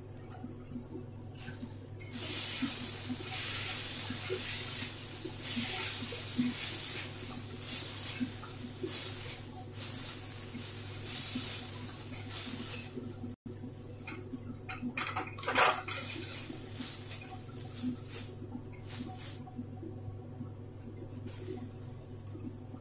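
Metal spatula stirring and scraping a spiced onion-tomato masala around a stainless-steel kadai, with sizzling from about two seconds in that stops abruptly at about thirteen seconds, then scattered scrapes and clinks against the pan. A steady low hum runs underneath.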